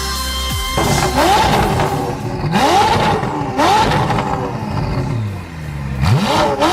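A sports car's engine revving several times, each rev a quick rise in pitch that levels off, after a moment of electronic music.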